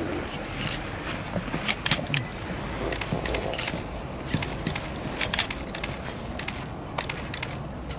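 Camera shutters clicking at irregular moments over a low steady rumble of outdoor background noise.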